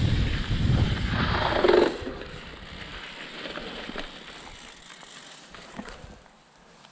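Mountain bike rolling fast over a dirt trail with a low wind rumble on the microphone and rattling clicks, then a short burst of noise as it slows to a stop about two seconds in. After that it is much quieter, with a few faint ticks.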